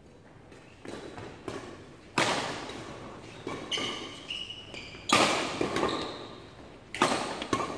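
Badminton rackets striking a shuttlecock in a doubles rally: a series of sharp hits, the loudest about two seconds apart, each echoing in a large hall.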